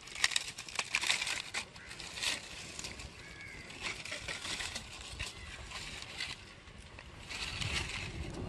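Dry palm leaves rustling and crackling as they are handled and pushed into a small fire that is catching, with dense crackles in the first couple of seconds and scattered ones after. A low rumble comes up near the end.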